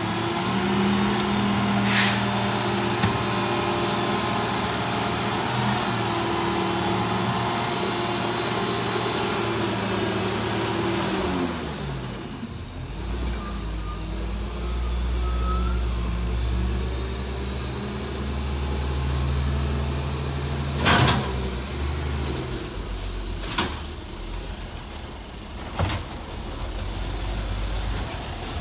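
CCC LET1 garbage truck's diesel engine running steadily with a high whine that rises and falls. About twelve seconds in the engine note falls away into a low rumble. A loud sharp burst comes about two-thirds of the way through, with a few fainter knocks elsewhere.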